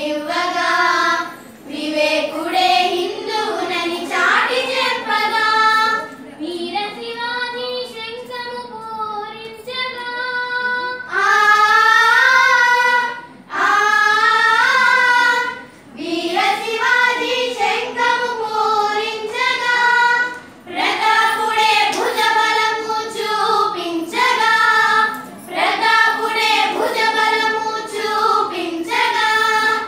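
A group of schoolgirls singing a song together, in phrases with short breaks between them. A softer stretch comes about seven seconds in, followed by a loud held passage.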